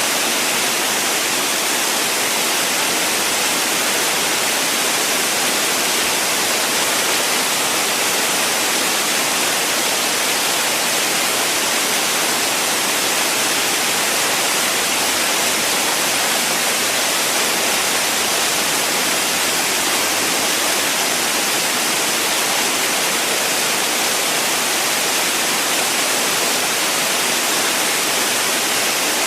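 Waterfall pouring: a steady, even rush of falling water that does not change.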